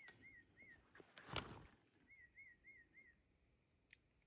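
Night insect chorus, a faint steady high hiss, with two runs of short repeated chirps, about three a second. A single sharp click about a second and a half in.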